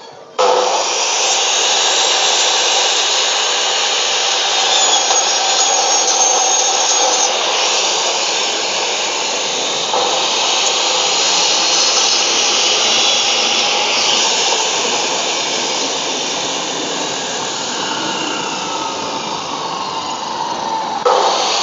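Maktec 2000-watt cut-off saw, fitted with a 7-inch 100-tooth aluminium-cutting blade, running at full speed and cutting through beef bone and meat: a loud, steady machine noise. It starts suddenly about half a second in.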